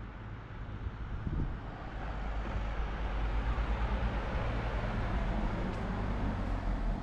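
Cars driving past close by on a street. Engine and tyre noise swells over the first few seconds and stays loud as a van and a car pass, over a steady low rumble.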